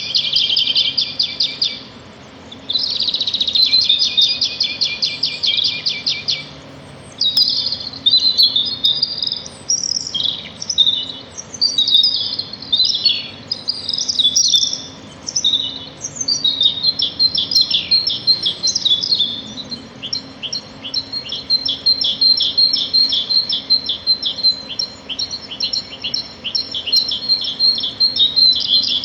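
Small songbirds singing loudly. First come fast, high trills in long bursts, then varied chirping phrases, and from about halfway through a long run of rapid repeated high notes.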